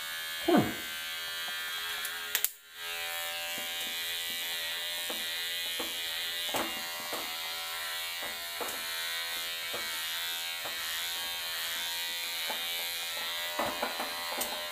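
Unix electric hair clipper with a 12 mm guard running steadily as it trims hair. It stops briefly about two and a half seconds in, then runs again, with short changes in its sound each time it passes over the head.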